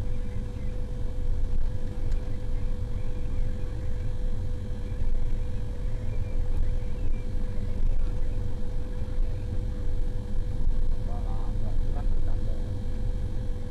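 Heavy diesel engine of a motor grader running steadily, a low rumble with a constant hum-like tone above it; a few brief, faint higher sounds come in about eleven seconds in.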